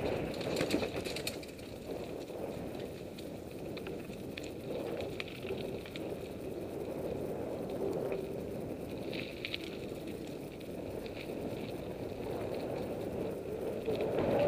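Mountain bike rolling along a dirt singletrack, a steady rumble of tyres and riding noise. Sharp rattles come about a second in as the bike crosses a stretch of laid logs.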